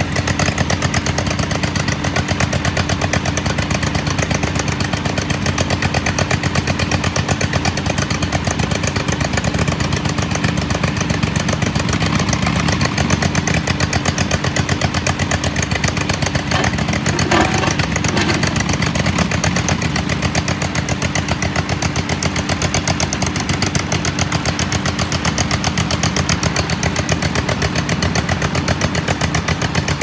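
2023 AGT KRT23 mini skid steer's 739cc gas engine running steadily with a rapid pulsing exhaust beat while the machine creeps along. The machine is listed as smoking and running rough, and smoke is coming off the engine.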